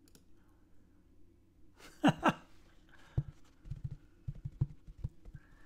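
Two quick sounds falling in pitch about two seconds in, then a string of soft, low bumps and knocks from handling close to the microphone as a top hat is put on and adjusted.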